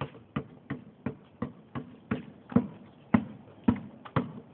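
A basketball dribbled on a concrete driveway: a steady run of bounces, about two and a half a second.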